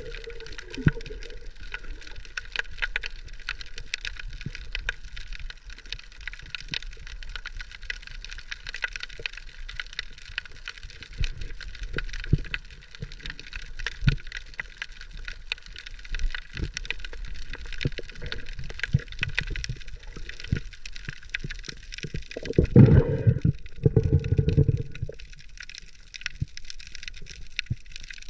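Underwater ambience picked up by a camera in its housing: a steady crackle of many small clicks, with louder low water rushes near the end.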